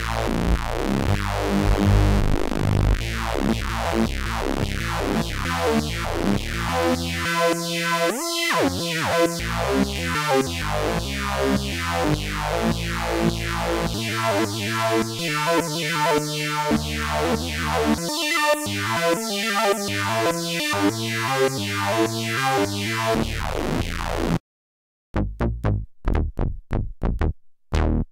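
Homemade analog synthesizer playing a repeating run of short plucked notes, each note's filter opening bright and snapping shut, the overall brightness swept up and down as the knobs are turned. Near the end it cuts out abruptly and a choppier, stuttering bass part starts: a two-oscillator sawtooth octave bass.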